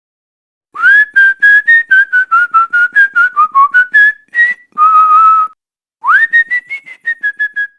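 A person whistling a quick tune: runs of short notes, a longer held note about five seconds in, then after a brief pause a second phrase that opens with an upward slide.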